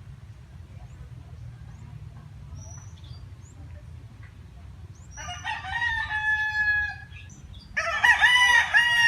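A rooster crowing twice, about five seconds in and again near the end, the second crow louder, over a steady low rumble.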